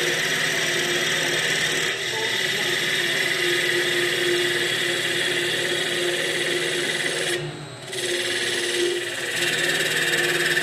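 Vertical CNC wood lathe turning a wooden workpiece against its cutter: a steady, high-pitched machine whine with cutting noise. About seven and a half seconds in, the cutting noise briefly drops away, then resumes.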